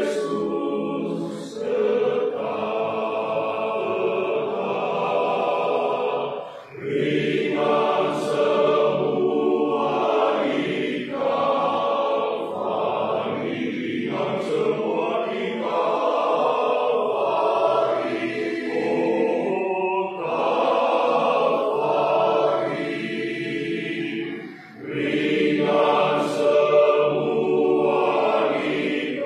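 Men's choir singing a hymn in sustained phrases, with two short breaks between phrases, about a quarter of the way in and again near the end.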